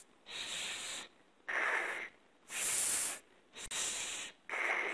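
A man exhaling in short hissed consonants as a diaphragmatic breathing exercise for singing: five bursts of under a second each with brief pauses between. Sharp 's' hisses alternate with lower, rougher 'ch' sounds, and one burst starts with a light click like a 'k'.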